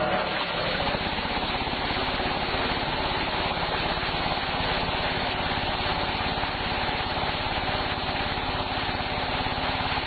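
Olive-harvesting trunk shaker running, vibrating the tree hard as olives and leaves shower down into its catching tarp: a steady, rapid mechanical rattle under a dense rushing noise.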